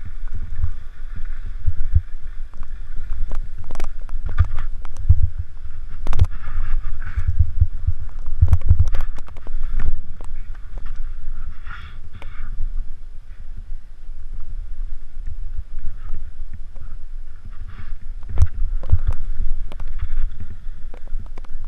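Skis hissing and scraping through fresh powder snow during a fast run, with wind rumbling and buffeting on the microphone and scattered knocks and clicks from the skis and poles.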